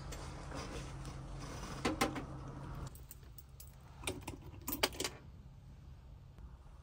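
A bunch of keys jangling and clinking as it is hung on a wall hook, in a few short bursts: once about two seconds in, then a louder cluster between about four and five seconds in.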